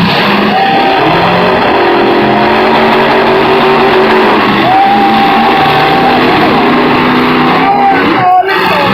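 Demolition-derby pickup truck engines revving hard, their pitch rising and falling, with a steady higher whine held for a couple of seconds midway.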